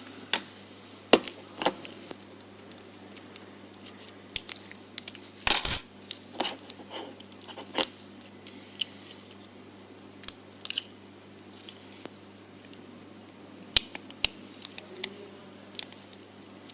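Scattered clicks and taps from small parts and tools being handled while a part is fitted onto a light fixture's circuit board, with a louder rattling cluster about five and a half seconds in. A faint steady low hum runs underneath.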